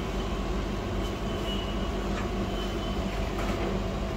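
Steady low hum and whir of powered workshop equipment, with a few faint light clicks.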